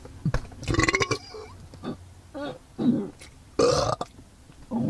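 A man belching loudly and deliberately, several burps in a row. The longest is a rattling belch in the first second, followed by a few shorter ones.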